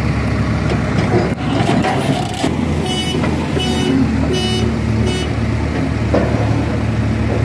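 Diesel engines of a JCB backhoe loader and a tractor running under load as the backhoe's bucket pushes the loaded trolley; the engine note steps up about two and a half seconds in. Around the middle come four short high-pitched tones a bit over half a second apart.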